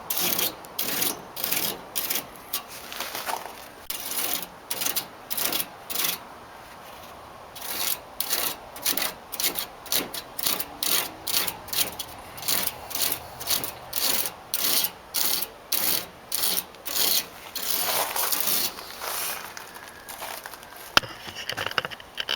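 A piece of fine-tooth plastic comb scraped in quick repeated strokes through air-conditioner condenser fins, about two strokes a second, straightening the bent fins. The strokes stop briefly about a quarter of the way in, and turn rougher and less regular near the end, with one sharp click.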